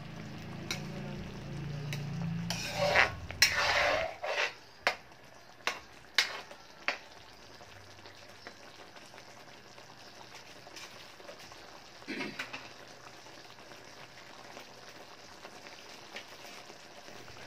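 Metal spoon stirring and scraping in an aluminium wok, with several sharp knocks against the pan in the first seven seconds. After that the cornstarch-thickened sweet and sour sauce simmers, bubbling and sizzling softly.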